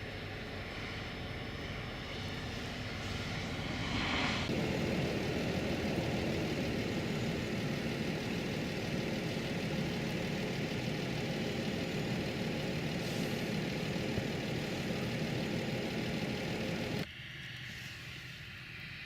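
Steady rumble of a car's engine and tyres while driving. It gets louder about four seconds in and drops off suddenly near the end.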